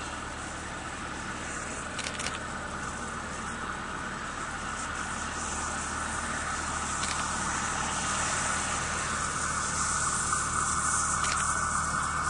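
ÖBB class 2067 diesel shunting locomotive running steadily as it approaches, its engine sound growing gradually louder.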